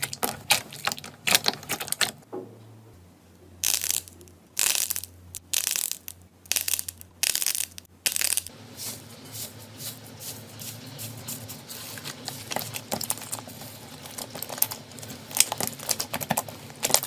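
Slime being handled by hand: a quick run of small sticky clicks and pops, then several longer, louder squishing sounds about four to eight seconds in, then softer crackling that gets denser near the end.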